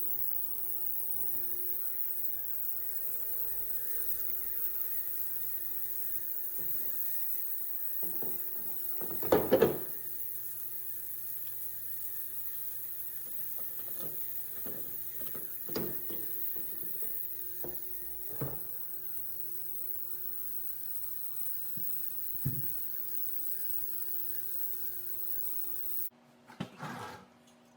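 Steady electrical hum in a small room, with scattered knocks and clicks of parts and tools being handled, the loudest a short clatter about nine to ten seconds in. Near the end the hum cuts off abruptly and a few brief knocks follow.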